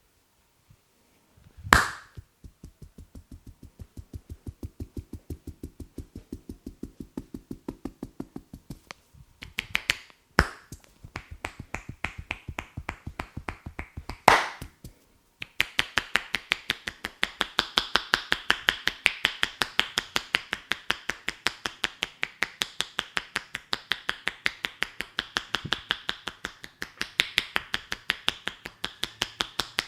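Rapid rhythmic hand percussion of an Indian head massage (champi): loosely held hands striking the head in fast even runs of sharp clicks, several a second. It is broken by three louder single cracks, one about two seconds in and two more around the middle.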